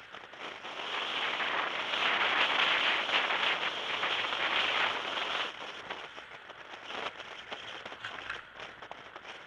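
Car driving noise heard from inside the cabin, a steady rushing of tyres and air. It is loud at first and drops noticeably about five and a half seconds in.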